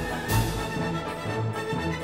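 Background music: an orchestral-style track with strings and a steady beat.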